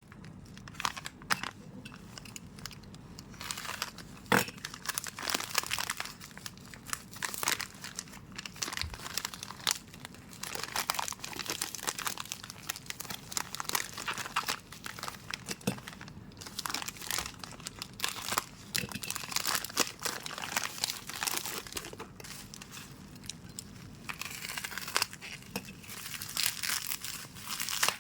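Parcel packaging being handled and opened by hand: irregular crinkling and tearing, with scattered sharp crackles and several louder rips.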